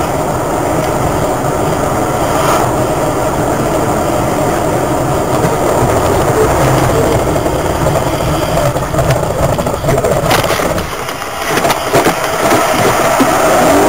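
Steady road and engine noise inside a car driving on a slushy highway. About ten seconds in there are a few sharp knocks, and then the noise dips and swells unevenly as a semi-truck passes close by.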